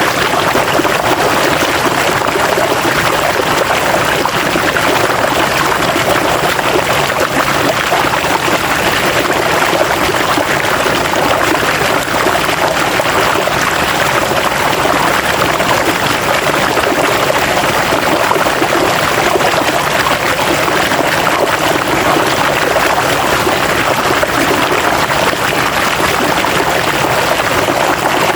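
River water flowing over rocks: a steady, even rushing and splashing with no pauses.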